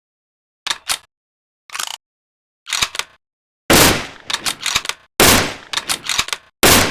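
Rifle sound effects: three light mechanical clicks about a second apart, then three loud rifle shots about a second and a half apart, each followed by a quick run of smaller clicks.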